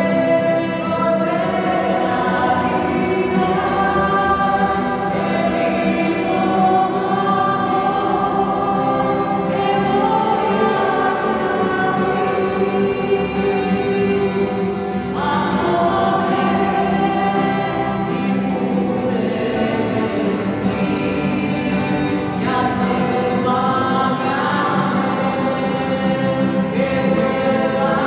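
Group of voices singing a church hymn in sustained, flowing lines, with a steady low tone held underneath.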